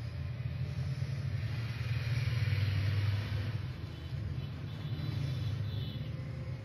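Turban cloth rustling as it is wrapped and tucked around the head, swelling about two seconds in, over a steady low hum.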